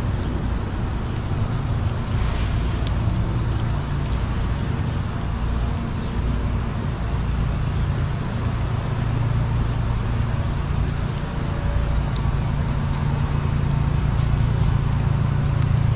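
Steady low rumble of background traffic, with faint sharp clicks of a fox squirrel gnawing a peanut scattered through it.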